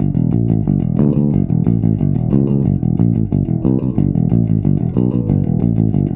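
Custom four-string electric bass with a Kent Armstrong MM pickup, played with a pick in the low register: a quick, continuous run of picked notes, several a second.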